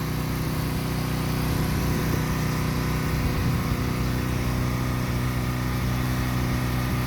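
Pressure washer engine running steadily at a constant speed, with a steady hiss above it.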